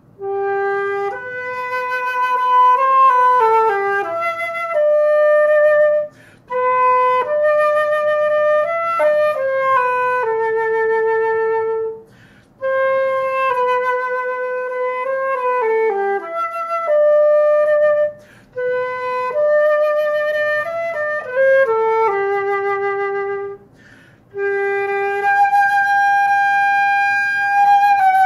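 Solo concert flute playing a slow melody in several phrases, with short breaths between them and a long held note near the end. The flute has torn pads and is out of adjustment.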